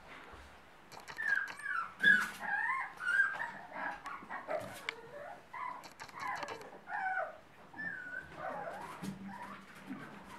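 Newborn puppies squeaking and whimpering: many short high squeals that rise and fall in pitch, loudest about two seconds in.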